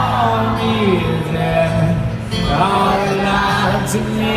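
Acoustic guitar playing sustained chords through a concert PA, with faint singing over them.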